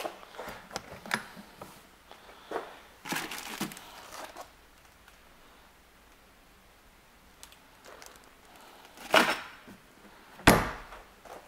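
Latch and lid of a motorcycle's hard, leather-clad saddlebag clicking and rattling as it is unlatched and opened, then two sharp thunks near the end, the second the loudest, as the lid is handled and shut.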